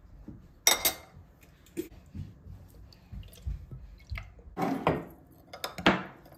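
Metal spoons tapping, clinking and scraping against a ceramic bowl as a wet, sugary dressing is spooned in and stirred, with a few sharp clinks.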